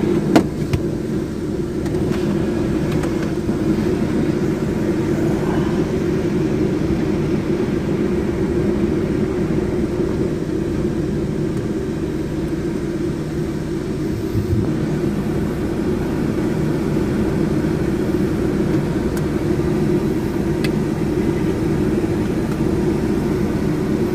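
Steady low hum of the Chevrolet Optra's engine idling, heard from inside the cabin. A sharp click comes right at the start as the mirror dashcam is pressed onto the rear-view mirror.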